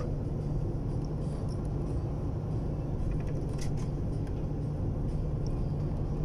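A boat engine running steadily: an even, low drone.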